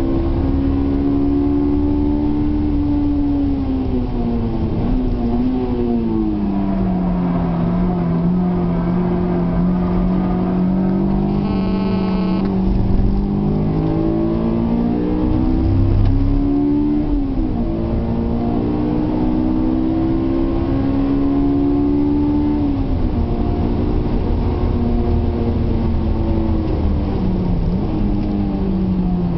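Honda S2000's four-cylinder engine heard from inside the cabin while lapping a race track, its pitch falling and climbing several times as the driver lifts off and accelerates through the corners. A short high-pitched tone sounds about twelve seconds in.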